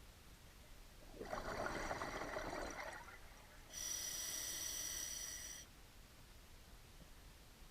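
Scuba diver breathing through a regulator, heard underwater. There are two breath sounds: a rushing burst about a second in, then a higher, hissing one about halfway through.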